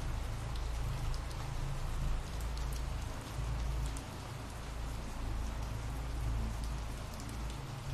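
Steady rain: an even hiss with scattered drop ticks over a low rumble.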